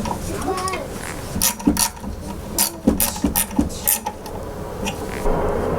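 A quick, irregular run of sharp mechanical clicks and clacks of metal parts being handled, then a steady rushing noise starts near the end.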